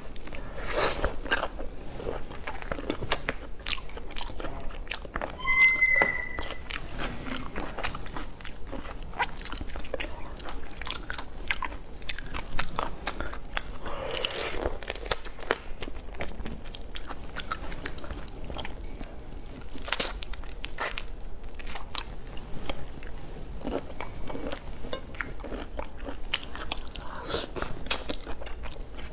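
Close-miked eating of whole shell-on marinated prawns: repeated biting, crunching of shell and wet chewing, in dense irregular clicks and crackles.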